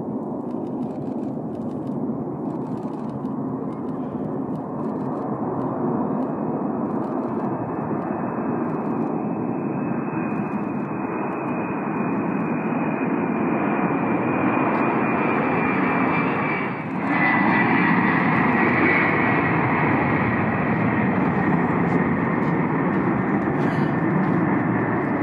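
Ilyushin Il-76MD's four turbofan engines running on a low pass and landing approach: a steady jet rumble that slowly grows louder, with a high fan whine coming in about ten seconds in and strengthening. The sound dips briefly about seventeen seconds in.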